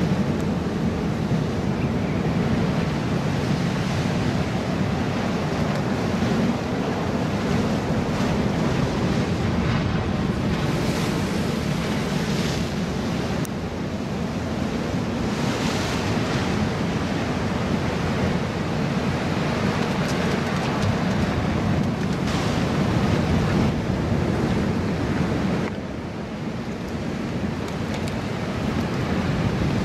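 Ocean surf washing and breaking on a rock wall, with a few louder crashes around the middle. Wind buffets the microphone throughout.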